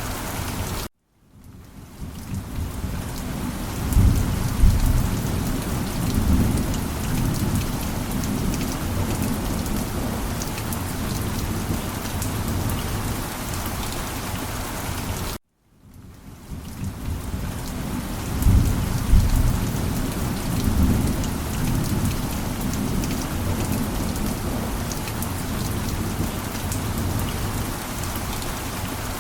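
Steady rain with rolling rumbles of thunder. The same short stretch of rain and thunder plays twice in a loop, each pass starting after a brief dropout to silence, with the thunder rumbling a few seconds into each pass.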